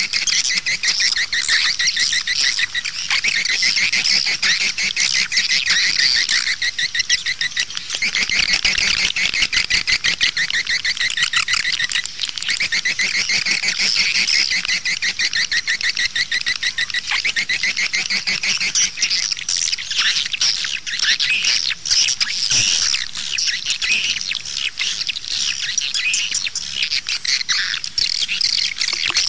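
Swiftlet lure-call recording: many swiftlets chattering in fast, high twittering trills, dense and unbroken. It is the 'outside' call played at a swiftlet house to draw passing birds in.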